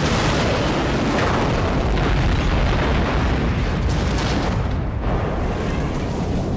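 Film sound effects of the starship Enterprise-D's saucer section crash-landing: a continuous, loud, deep rumble with crashing and grinding noise.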